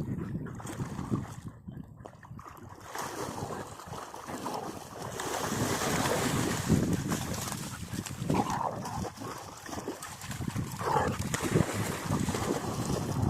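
Golden retriever whining twice, short rising-and-falling whimpers about eight and eleven seconds in, over steady wind and water noise.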